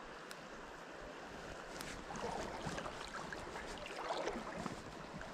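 River water running, a steady rushing that grows louder for a few seconds in the middle, with a few faint clicks.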